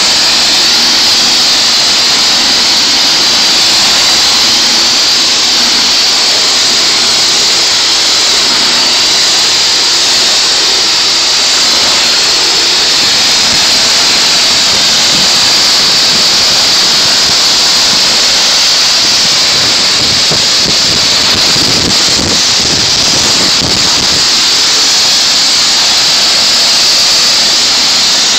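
High-pressure water spraying steadily from a pressure-washer wand onto a car's body panels, a loud, even hiss that turns rougher for a few seconds about three-quarters through.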